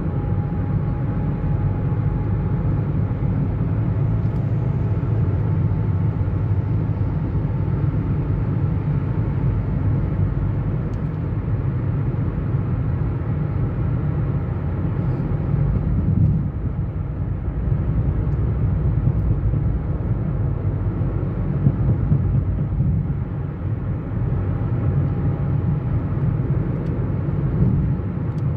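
Steady road noise of a car being driven on the road, a continuous low rumble of engine and tyres.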